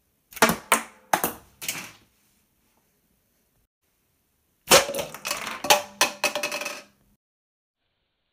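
Sharp plastic clicks and rattles from a Lego Technic rubber-band slingshot being handled and drawn: about five clicks in the first two seconds, then a longer, quicker run of clicks about halfway through.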